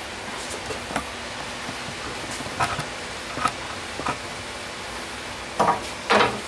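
Light knocks and clatters of a thin wooden strip being handled and laid on a miter saw against its fence, the loudest two near the end, over a steady background hiss.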